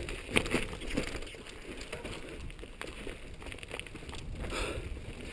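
Loose rock and gravel crunching on a steep, rocky mountain-bike trail: scattered small clicks and crunches over a low rumble.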